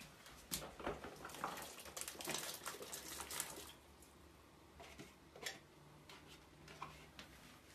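Diced potatoes being tipped from a plastic bowl into a pot of boiling soup stock: faint clatter of handling and soft splashing, busiest in the first few seconds, then a few isolated clicks.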